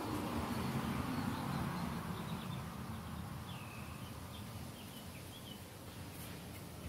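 Outdoor ambience: a steady low rumble, a little louder at first, with a few short, high bird chirps in the second half.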